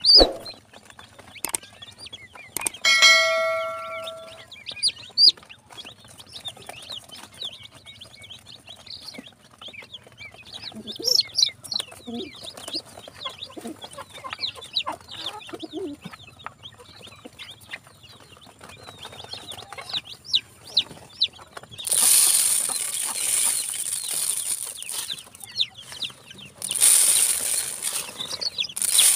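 Newly hatched chicken chicks peeping continually, many short high calls overlapping. A short ringing tone sounds about three seconds in, and two longer stretches of hissing rustle come near the end.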